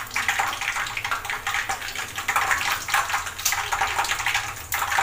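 Cooking oil sizzling and crackling steadily as it heats in a non-stick kadai, small bubbles rising as it comes up to frying heat.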